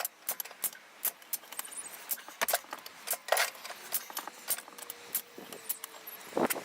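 Irregular light metallic clinks and knocks of steel tools being handled and knocked together, some louder than others.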